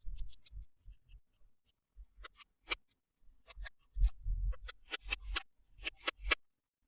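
Toys and packaging being handled: irregular clusters of small sharp clicks and taps, with a soft low thump about four seconds in.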